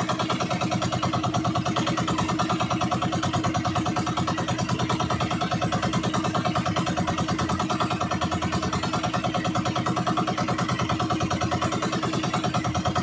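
Small boat engine running steadily at constant speed, an even rapid chugging beat that does not change.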